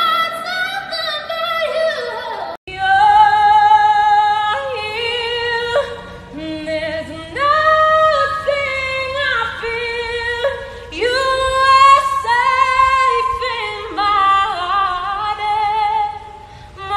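Women singing solo with no instruments. A first short phrase breaks off sharply about two and a half seconds in, and a second female voice follows with long high held notes with vibrato, joined by quick runs and slides between notes.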